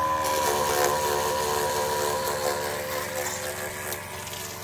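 Small electric diaphragm water pump running with a steady whine, pumping water again now that a stone blocking its inlet has been cleared, with a hiss of water spraying from a hose spray gun.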